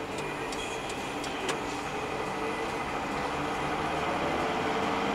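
Vehicle engine and road noise heard inside the cab of the moving dashcam vehicle: a steady running drone with faint ticks, getting slightly louder toward the end.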